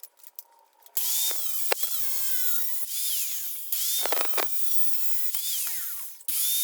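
Power tool cutting through steel angle. It makes a high-pitched grinding whine that starts about a second in, and its pitch sags and recovers as the tool loads. It stops briefly near the end, then starts again.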